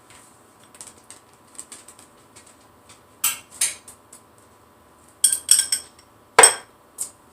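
Cutlery clinking and tapping against dishes as marinated tomatoes are served onto a burger: a scattering of light clicks, a few close together past the middle, the loudest about six and a half seconds in.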